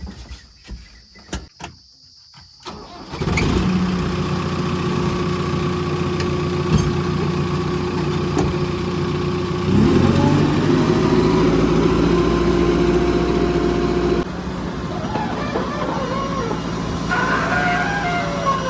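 A heavy diesel engine starts after about three seconds of clicks and then runs steadily. About ten seconds in it revs up, rising in pitch and getting louder, and drops back about four seconds later. Near the end there is a short wavering high-pitched call.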